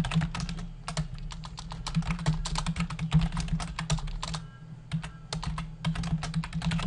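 Typing on a computer keyboard: rapid runs of key clicks, with a brief pause a little past halfway.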